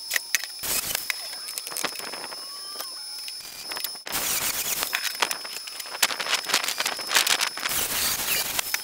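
A few sharp metal knocks as steel angle is worked on the frame. About four seconds in, a 4-inch angle grinder with a metal cutting wheel starts cutting through the steel angle, a dense steady hiss full of crackle.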